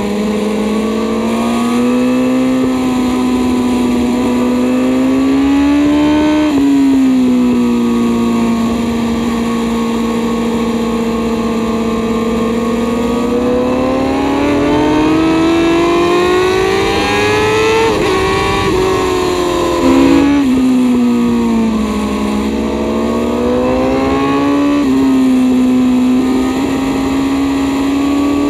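2021 Honda Fireblade SP's inline-four engine running hard on a track lap, heard from on the bike. The engine note climbs under acceleration and falls off into corners, with a long climb about halfway through and abrupt steps in pitch at the gear changes.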